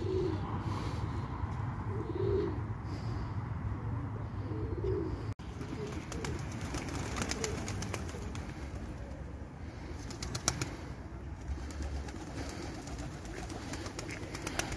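Pigeons cooing, low calls about every two seconds. After a brief break about five seconds in, a few quick clusters of sharp taps sound over a steady low outdoor rumble.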